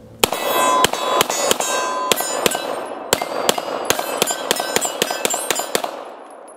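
Beretta 92FS 9mm pistol fired in a fast string of about fifteen shots, with steel targets ringing from the hits. The firing stops about a second before the end.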